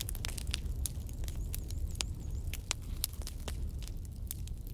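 Wood campfire crackling: irregular sharp pops and snaps over a low, steady rumble.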